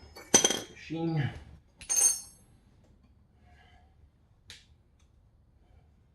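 Metal tools clinking: a sharp ringing clink, then a second ringing clink about two seconds in, and a faint click later on.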